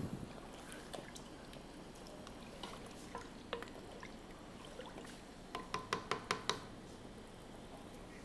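Faint stirring of milk for kheer in a cooking pot with a wooden spoon, with a quick run of light taps a little past the middle.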